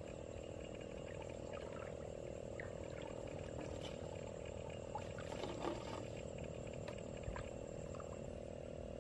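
Steady chorus of frogs in a flooded paddy wetland, with a thin high insect buzz above it and a few faint scattered ticks; a brief, slightly louder stir about five and a half seconds in.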